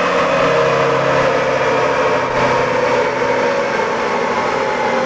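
L5P Duramax V8 turbodiesel pickup running on a chassis dyno, engine and rollers going steadily with a whine that slowly falls in pitch.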